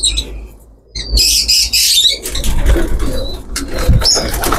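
Birds in a pigeon loft calling, with short bursts of wing flapping and feather rustling from pigeons held in the hands and having their wings spread.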